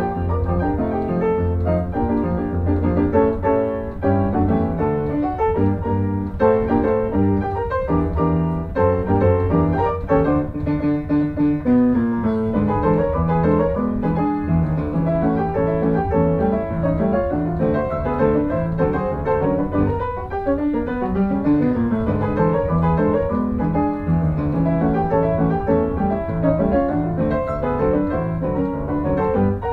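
Piano music playing, a continuous stream of notes over a steady low bass line.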